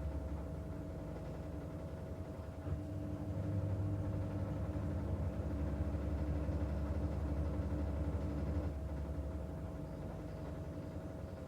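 Washing machine running, a steady low motor hum with a faint whine. It grows louder a little after the start and eases off again about three quarters of the way through, as the drum turns and pauses.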